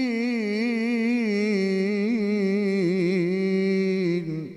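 A man reciting the Qur'an in the drawn-out, melodic mujawwad style, holding one long ornamented note for about four seconds with its pitch wavering up and down. Near the end the note stops, and an echo of the voice fades away.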